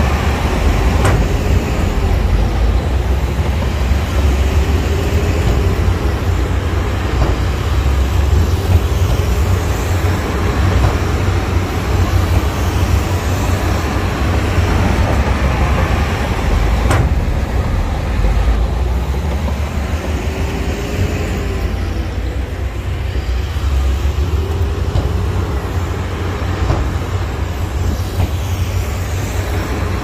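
Heavy diesel earthmoving machinery running: a loud, steady low rumble, with an engine note that rises and falls every few seconds as it works under load.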